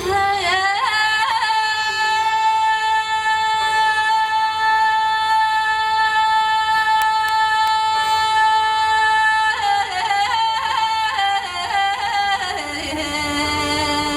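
A woman singing Tibetan-style: she rises into one long, high held note of about eight seconds, then breaks it into quick ornamental turns and slides down, over soft sustained instrumental accompaniment.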